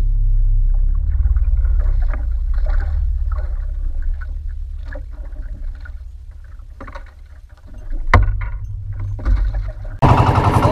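Wind and water noise on a small outrigger boat at sea: a steady low rumble, with scattered light knocks and one sharp click about eight seconds in as a caught tuna is handled in the boat.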